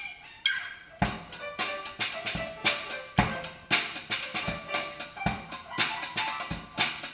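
Drum kit played in a steady beat with pitched music, the strikes coming about twice a second and getting going about a second in.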